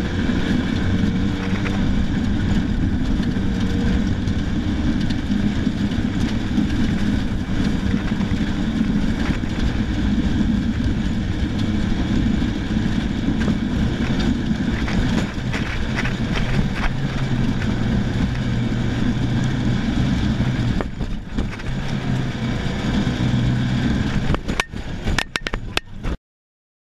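Rally car engine running under load, with road and wind noise inside the cabin, as the car drives off-road. Near the end come several sharp knocks, then the sound cuts off suddenly.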